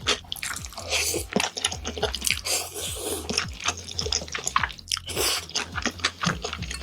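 Close-miked eating sounds: a person chewing and biting food, with wet mouth smacks and crunchy bites in a dense, irregular run.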